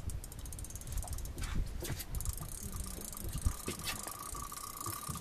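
Fishing reel ratcheting in a fast run of fine clicks while a hooked shark is played on the line; a thin steady whine joins about two seconds in.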